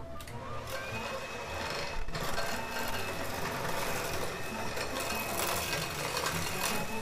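Electric hand mixer running, its beaters whirring through butter and sugar in a glass bowl: a steady motor whine.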